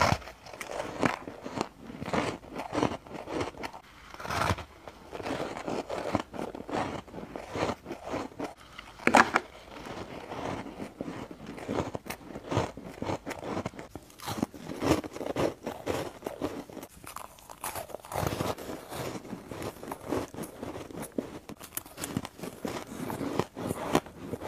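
Close-up biting and chewing of snowflake ice: many quick, irregular crunches, with one loud sharp bite a little over a third of the way in.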